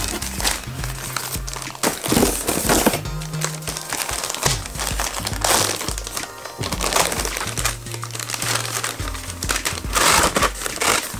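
Clear plastic parts bags crinkling in irregular bursts as they are handled and pulled from a box, over background music with a steady bass line.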